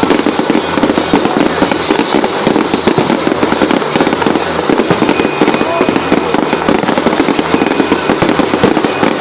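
Fireworks going off in quick succession, a dense, continuous run of crackles and pops.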